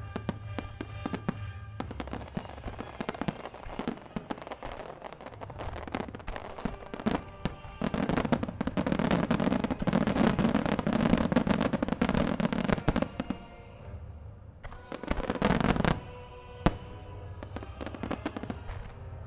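Fireworks shells bursting in quick succession in a starmine finale barrage, building to a dense, continuous flurry of bursts in the middle and another short flurry later, then one sharp single bang. The show's music plays underneath.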